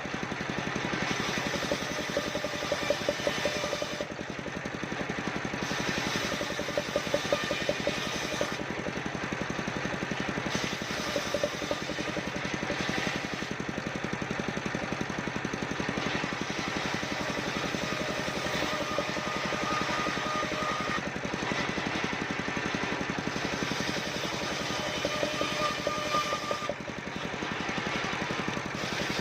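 Engine-driven mobile circular sawmill running steadily while sawing waru wood. The saw's high hiss drops away and comes back several times.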